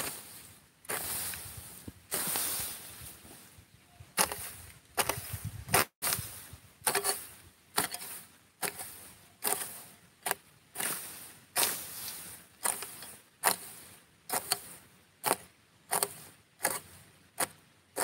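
A long-handled hoe chopping into dry, grassy soil and scraping through it, stroke after stroke. The strokes are longer and scraping in the first few seconds, then settle into a steady rhythm of about one and a half strikes a second.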